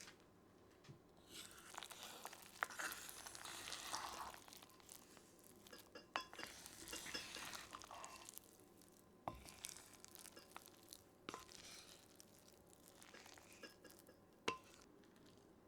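Soft scraping and stirring in a pot or bowl, in several stretches of a second or two each, with sharp light clinks of utensils against pottery or glass.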